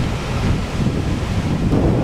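Ocean surf breaking, with wind buffeting the microphone: a steady rushing noise over a deep rumble that gets a little fuller near the end.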